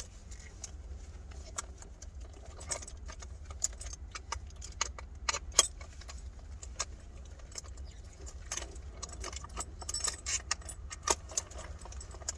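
Scattered light metallic clinks and clicks of hand tools and steering-wheel parts being handled, over a steady low hum.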